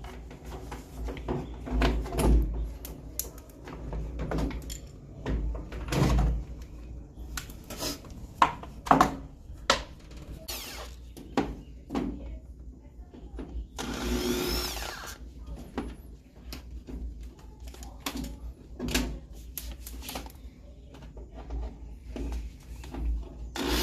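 Knocks, clicks and clatter of washing-machine parts being handled and unscrewed during disassembly, with a power drill whirring briefly a little past the middle and again at the very end.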